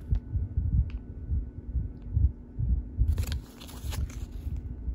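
Handling noise from packaged items being moved and set down: a few light clicks and taps, and a brief crinkle of plastic packaging a little after three seconds in, over an irregular low rumble.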